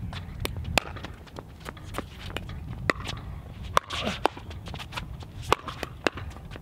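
Pickleball paddles popping against a plastic pickleball during a doubles rally: a series of sharp, irregularly spaced hits, with players' footsteps on the hard court.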